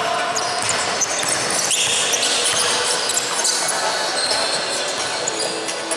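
Basketball game play in a large gym: the ball bouncing on the court, with short high sneaker squeaks over a steady echoing hall noise.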